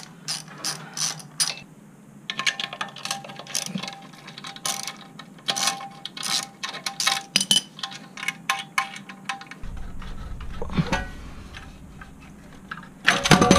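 A socket ratchet clicking in short irregular runs as the muffler's mounting bolts are worked loose with a 12 mm socket. The clicking thins out about ten seconds in.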